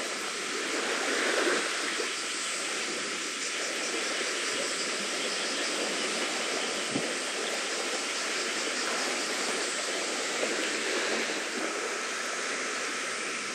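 Steady rushing outdoor noise at a seashore, with one faint tick about seven seconds in.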